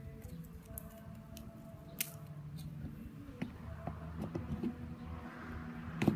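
Scattered clicks and knocks of cart parts being handled as small wheels are slid onto the detector cart's axles and pinned, the loudest click near the end, over a low steady hum.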